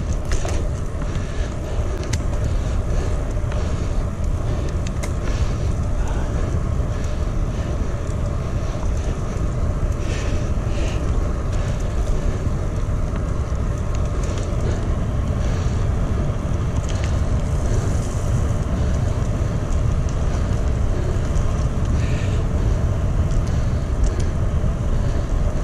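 Steady wind rush on the microphone with road and tyre noise from a moving bicycle: a continuous low rumble.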